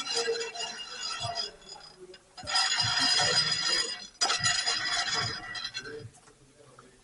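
Metallic clinking and jingling in three bursts, near the start, about 2.5 seconds in, and just after 4 seconds, like tools or metal parts being shuffled.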